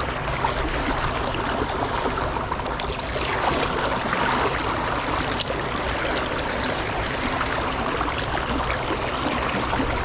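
Steady rushing and rippling of a shallow river's current flowing past a canoe.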